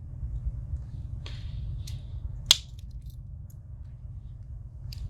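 Handling of a Swiss Army knife: a soft rub and small clicks, then one sharp snap about halfway through as a tool closes or opens against its backspring. A steady low hum sits under it.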